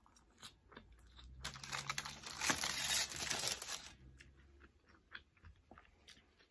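Close-miked chewing of a forkful of beef nachos, with soft mouth clicks and a loud, noisy stretch of about two and a half seconds in the middle.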